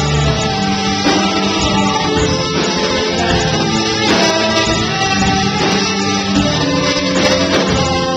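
Three-piece rock band playing live: electric guitar, bass guitar and drums, with steady drum hits under held guitar notes.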